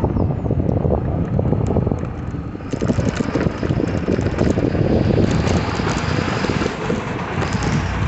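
Wind rushing over the microphone of a moving electric bicycle, with city street traffic beneath it; a brighter hiss joins about three seconds in.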